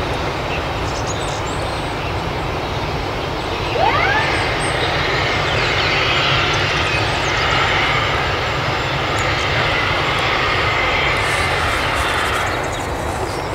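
Boeing 747-400 jet engines running as the airliner moves along the runway, a steady loud noise that eases near the end. A short rising whistle sounds about four seconds in.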